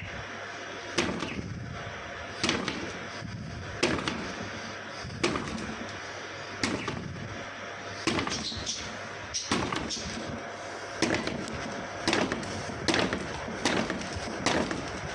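Fiskars K40 utility knife repeatedly stabbed into wood boards: a string of sharp wooden thuds, about one every second and a half at first, then coming faster, about two a second, in the last few seconds.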